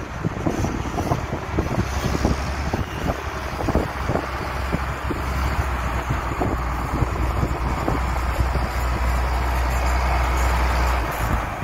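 Heavy tractor engine running with a steady low drone, over irregular knocks and clatter from beet-harvest machinery. The drone drops away about a second before the end.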